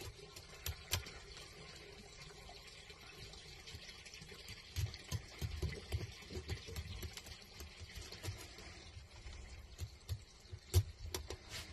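Filleting knife working along the bones of a pollock: a faint wet scraping with scattered small ticks as the blade runs against the bone, and two sharper clicks near the end.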